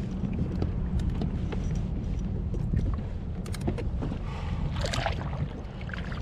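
Water lapping against a kayak hull over a low steady rumble, with scattered small clicks and taps from handling line and gear. About four and a half seconds in comes a short splash as a halibut is hauled out of the water by the leader.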